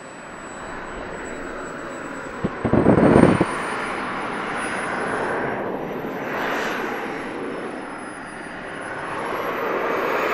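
Model jet's turbine engine running: a high whine that rises, dips and rises again over a steady rushing noise, getting louder near the end as it spools up to roll. A brief loud burst comes about two and a half seconds in.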